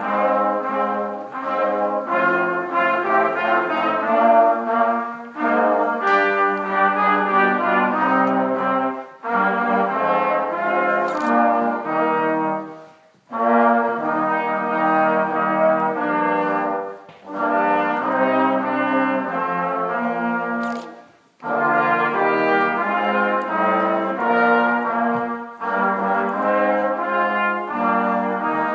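Brass ensemble playing chords in phrases about four seconds long, with short breaks between them.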